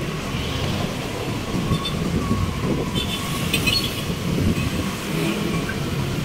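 Motorcycle ride in city traffic: a steady low rumble of the motorcycle's engine and wind buffeting the microphone, with a few faint clicks near the middle.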